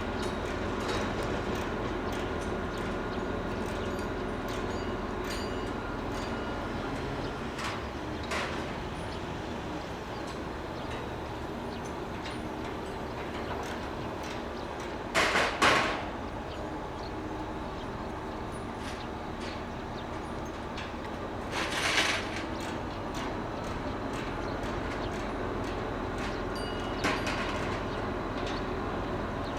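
Steady low rumble and hum of outdoor ambience, with a few short hissing bursts: a double one about halfway through, and others at about a quarter and three quarters of the way.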